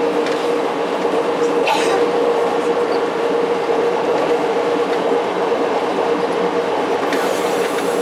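NSW CPH 'Tin Hare' rail motor running along the line at speed: a steady engine drone with a steady hum over the noise of the wheels on the rails. A brief high-pitched noise cuts in about two seconds in.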